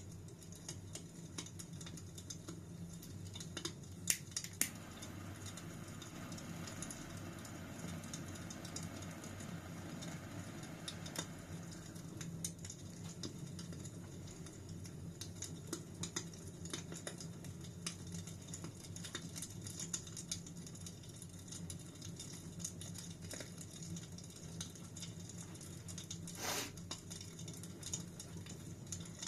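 Wood fire burning in a fireplace, crackling steadily with many small irregular clicks and a few sharper pops, the loudest about four seconds in and near the end.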